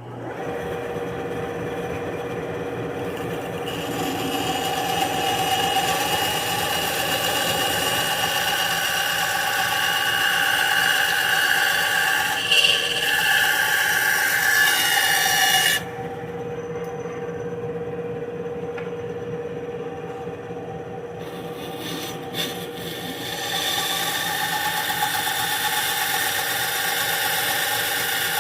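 A Harbor Freight bench-top bandsaw switches on and runs steadily, its blade cutting a curved line through slab wood about an inch thick. The cutting noise drops away for several seconds past the middle, leaving the saw running free, and then picks up again near the end.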